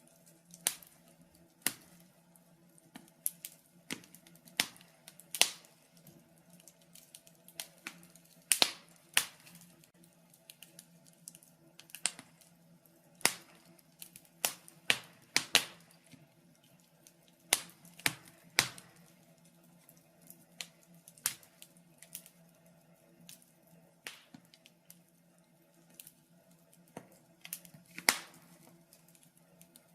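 Wood fire in a fireplace crackling: irregular sharp pops and snaps, a few of them loud, over a faint steady hum.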